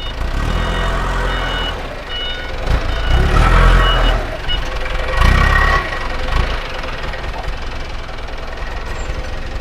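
Diesel engine of an excavator running, swelling three times as it works harder, with a few short high tones repeating in the first half.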